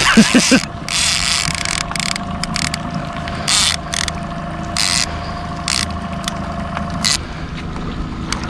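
Fishing reel being cranked while a hooked salmon is brought in beside the boat, its gears ratcheting, over a steady hum and a few sharp knocks.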